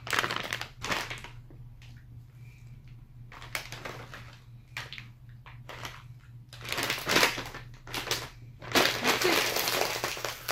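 Plastic Calbee potato-chip bag crinkling in several bursts as it is handled and pulled open, the longest and loudest stretch near the end.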